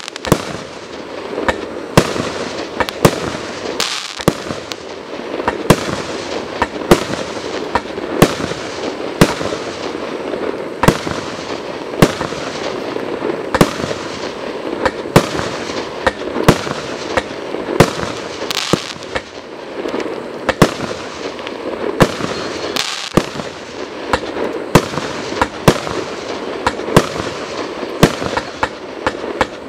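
A 90-shot consumer fireworks cake with 22 mm tubes firing in a steady barrage: sharp reports about two a second, with dense continuous noise from the bursting effects between them.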